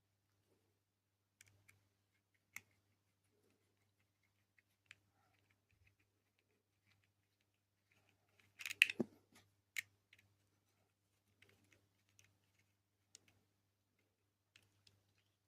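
Faint, scattered clicks and taps of small plastic robot parts and screws being handled while a leg is screwed onto the robot, with a brief cluster of louder clicks and a knock about nine seconds in.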